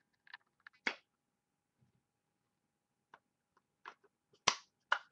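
Hands handling a trading card and a one-touch magnetic plastic card holder: a scatter of light clicks and taps, the sharpest about a second in and two close together near the end.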